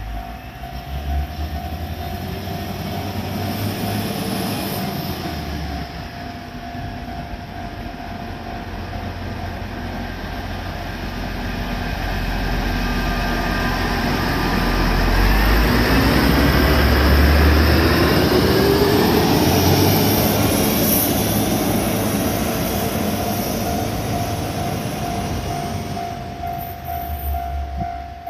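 KiYa E193 'East i-D' diesel inspection train pulling out and passing close by, its diesel engines running and rising in pitch as it picks up speed, with wheel noise on the rails. It is loudest about halfway through as the cars go past, then fades as it draws away near the end.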